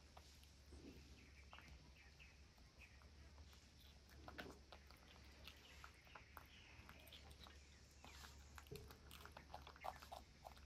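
Near silence: faint, scattered small clicks and crackles of young macaques chewing and handling pieces of stir-fried green vegetables, over a low steady hum.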